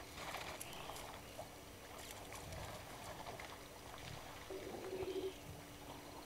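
Faint outdoor waterhole ambience with scattered soft clicks and rustles. About four and a half seconds in comes a short, evenly pulsed buzz lasting under a second: the remote camera's zoom motor as the view zooms in.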